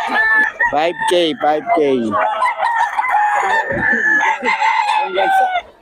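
Several gamecock roosters crowing over one another, with some clucking.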